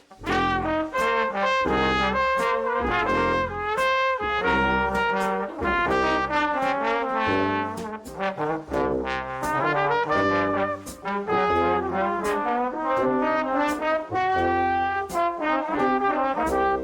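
Music with brass, trumpet and trombone, over a steady beat.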